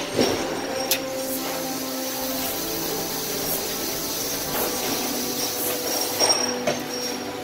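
Automated sleeve-inspection multigauge running its measuring cycle: motors whining steadily with hissing air and a few sharp clicks of the mechanism, about a second in and again near the end.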